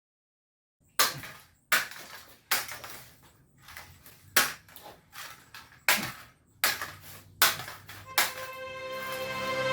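A run of sharp, ringing hits, about one every 0.7 seconds, beginning a second in. Music swells in under the last hits near the end.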